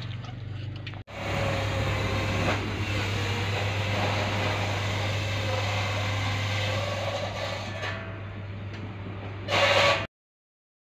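Engine running steadily with a low hum, broken by a brief dropout about a second in and a louder burst just before it cuts off near the end.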